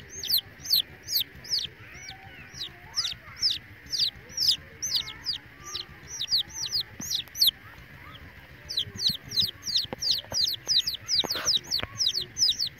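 Young chicks peeping: a steady run of short, high peeps, each falling in pitch, about two or three a second. The peeps pause briefly past the middle and come back faster, about four a second, near the end.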